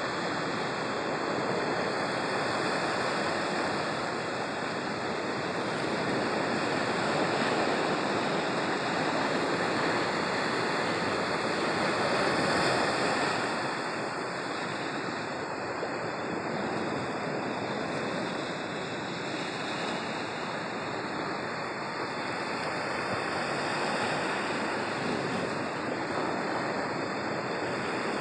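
Ocean surf washing and breaking over shore rocks: a continuous rush of water that swells and eases, loudest about halfway through.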